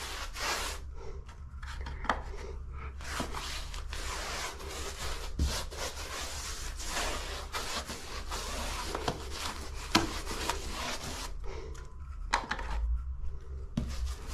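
A 3-inch disposable paintbrush rubbing and scraping in repeated strokes as primer is brushed into the ceiling-to-wall corner over freshly sprayed texture.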